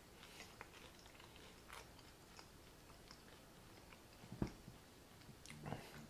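Faint chewing of crisp fried tortilla, with small crunching clicks and one sharper crunch about four and a half seconds in.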